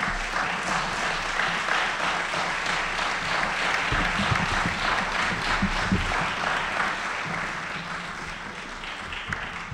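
Audience applauding, a dense even patter of many hands clapping that tapers off over the last couple of seconds.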